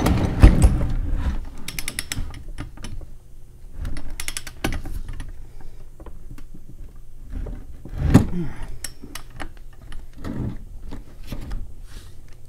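Metal clicks and clunks from a ratchet wrench being worked on the bolts on top of a VW 02J transmission case, with a quick run of clicks about two seconds in. Heavier knocks come about half a second in and again about eight seconds in, as the gearbox is handled on the bench.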